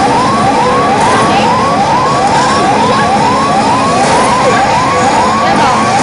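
Pachislot machine sound effect: a quick, regular run of rising electronic chirps, about two and a half a second, over the constant dense din of a pachislot hall.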